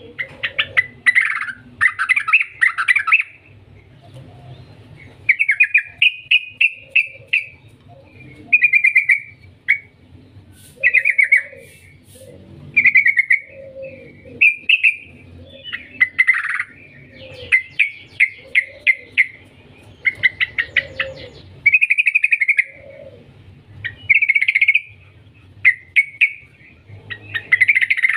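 Yellow-vented bulbul (trucukan) singing eagerly, phrase after phrase of rapid chattering notes, each burst about a second long with short pauses between.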